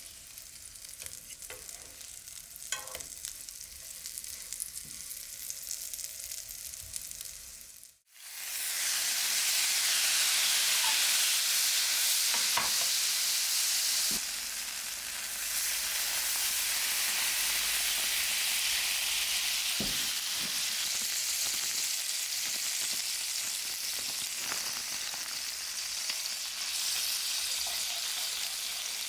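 Food sizzling in a frying pan, a soft sizzle with small clicks of utensils at first. About eight seconds in the sound cuts out for a moment and comes back as a much louder, steady sizzle.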